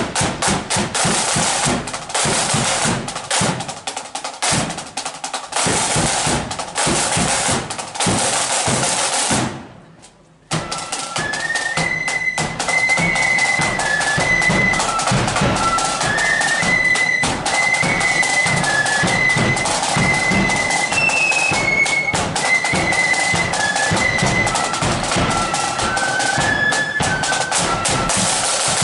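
Marching flute band: snare and bass drums beat alone for about ten seconds, then after a brief drop the flutes come in with a high tune over the drumming.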